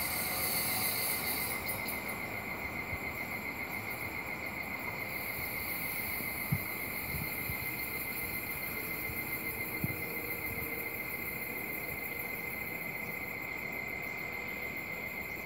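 Insects trilling steadily in a high, fast-pulsing drone. The last of the departing train's noise fades out in the first couple of seconds. Two brief faint knocks come near the middle.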